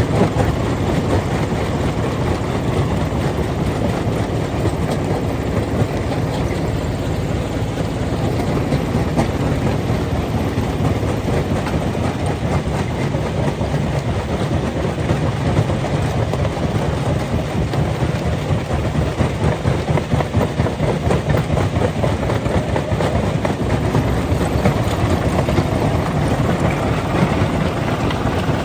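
Stone crusher running, a steady loud din with a constant rattle and clatter of rock being broken and fed through.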